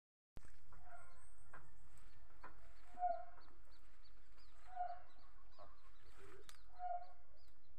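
Chickens clucking, a short low cluck about every two seconds, with faint high chirps repeating throughout.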